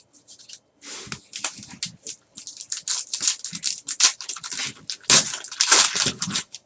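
Trading card packs and cards being handled at close range: a dense run of crinkling and short clicks as wrappers are worked and cards are shuffled through.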